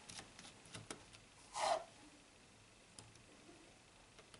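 Quiet handling sounds of a screwdriver turning out small screws in a cassette player's mechanism: a few light clicks and one brief scraping rub about a second and a half in.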